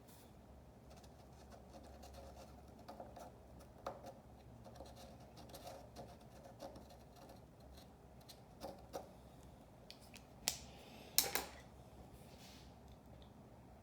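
Quiet room with faint scattered clicks and taps, and two sharper clicks close together near the end.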